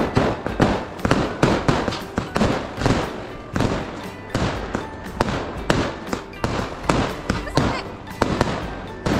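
Aerial fireworks bursting overhead: a rapid, irregular string of sharp bangs, several a second, thinning out and getting quieter in the second half.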